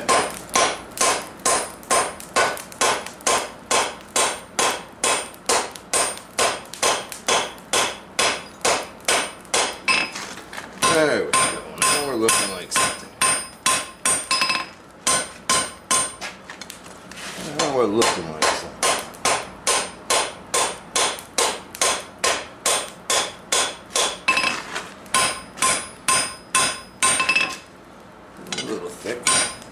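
Hand hammer striking red-hot steel bar on an anvil, about two blows a second, the anvil ringing after each blow. The hammering breaks off briefly twice in the middle.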